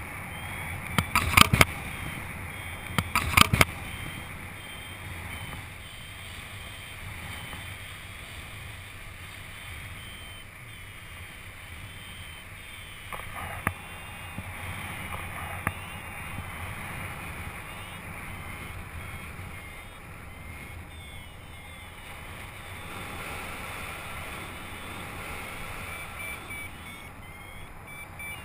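Wind noise rushing over the microphone of a camera on a paraglider pilot in flight, steady throughout, with a few sharp knocks on the camera or harness about 1 and 3 seconds in.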